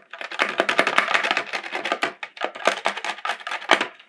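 Kitchen knife blade scraping over a plastic bucket, shaving off the plastic burrs left around holes melted through with hot wire: a fast run of short, scratchy strokes.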